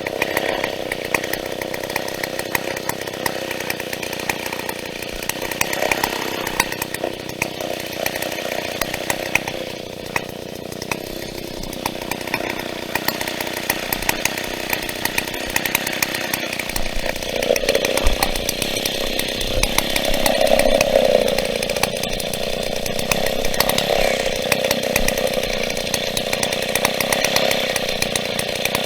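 A big vintage Stihl two-stroke chainsaw running under load, cutting into a birch stem. Its engine note shifts about two-thirds of the way through and is loudest shortly after.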